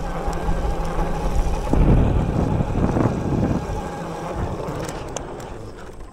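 Electric mountain bike under way: the Bafang BBSHD mid-drive motor whines steadily under power, with wind rushing on the microphone and the tyres on the trail. The rushing gets louder from about two to three and a half seconds in.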